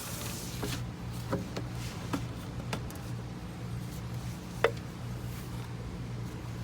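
Light clicks and knocks of PVC pipe and fittings being handled and fitted, about six of them, the sharpest about two-thirds through, over a steady low hum.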